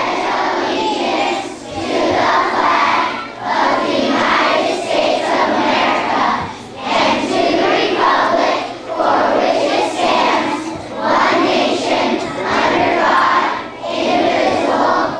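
A hall full of schoolchildren and adults reciting the Pledge of Allegiance together in unison, phrase by phrase, with short pauses between phrases.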